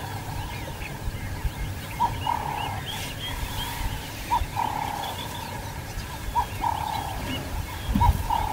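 Birds calling in the bush: a repeated mid-pitched call, a short note followed by a longer one, recurring every second or two from about two seconds in, over many faint high chirps.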